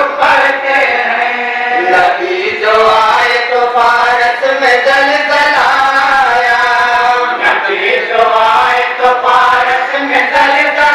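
Men's voices chanting into a microphone in long held notes that glide up and down in pitch, with no instruments.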